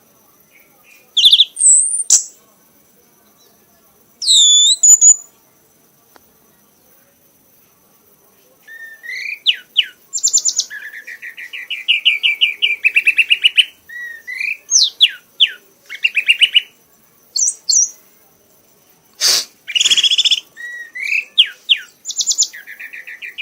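Kanis merah songbird singing: a few sharp whistled notes gliding down and up, a pause of a few seconds, then long fast trills and chattering phrases repeated over and over. A single sharp knock comes about three-quarters of the way through.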